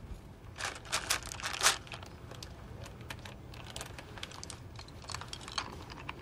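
M&M candies poured from a crinkling paper candy bag into a hand: a short run of rattling, crinkly bursts about a second in, then scattered small clicks and rustles as the handful is eaten.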